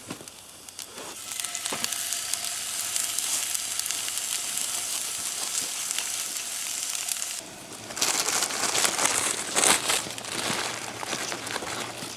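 Meat sizzling in a cast-iron skillet over a wood fire, a steady hiss with fine crackle. About seven and a half seconds in it gives way to louder crackling and popping from the fire under a grill.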